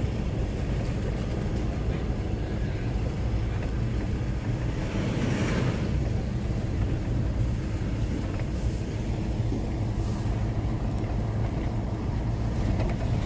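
Mitsubishi Pajero driving slowly, heard from inside the cabin: a steady low hum of engine and tyres.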